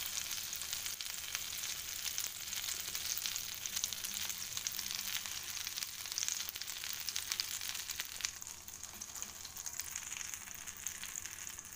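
Minced garlic sizzling in foaming melted butter in a nonstick pan, a steady hiss full of fine crackles that grows a little quieter after about eight seconds.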